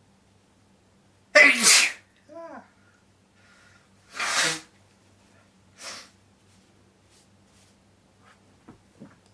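A person sneezing: one loud sneeze about a second and a half in, followed by a short falling voiced sound. Then come two more noisy bursts, one about three seconds later and a fainter, shorter one near six seconds.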